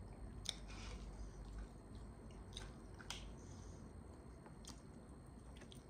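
Faint chewing of a mouthful of food, with a handful of short soft mouth clicks scattered through.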